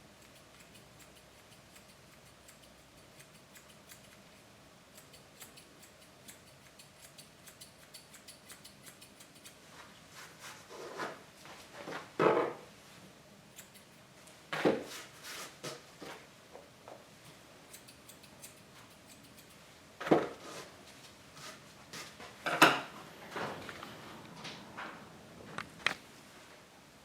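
Scattered sharp snips and clicks of dog-grooming shears and tools, coming in short clusters from about ten seconds in.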